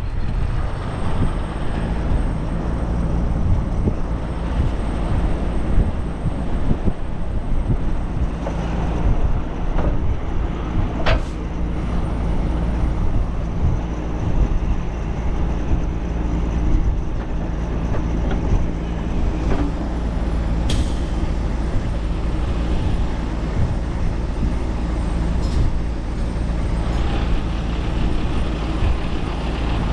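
Heavy diesel truck engine running steadily, with gusty wind buffeting the microphone in a low rumble. A few short sharp clicks or knocks, the clearest about eleven seconds in and again past the twenty-second mark.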